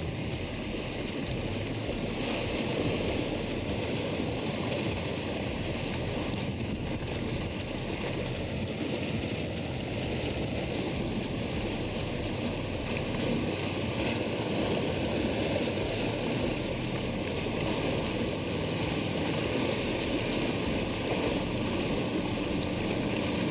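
Steady rushing of choppy water and spray around a small center-console boat running through rough inlet water, with its engine running under the water noise.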